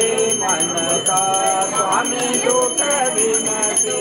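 Metal hand bell rung rapidly and steadily for the aarti, its ringing tones sustained throughout, with voices singing a devotional song under it.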